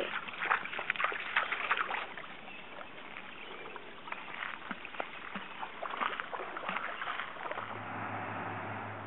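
Water splashing and sloshing irregularly as a golden retriever paws and ducks for a rock in a shallow pond. About seven and a half seconds in, a steady low hum starts and carries on.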